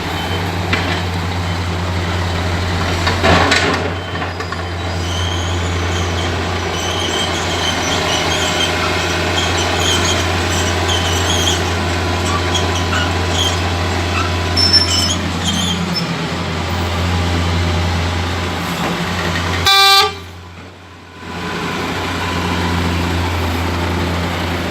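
A motor vehicle's engine running steadily with a low drone, and a short horn blast about three-quarters of the way through.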